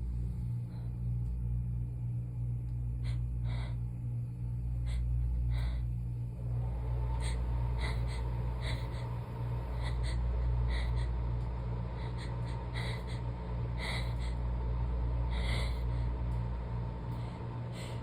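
A person's short, catching breaths and sniffs, about one a second and irregular, as a sneeze builds during a sneezing fit. Under them runs a steady low hum.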